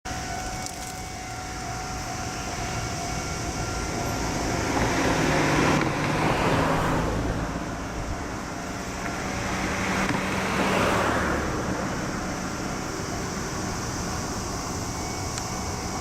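Two road vehicles passing one after the other, each swelling up and fading away, over a steady traffic background.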